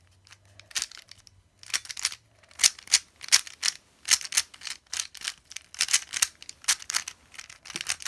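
A plastic 3x3 speed cube being turned fast by hand: a rapid run of clicks and clacks as the layers snap round, in quick clusters with short gaps between them.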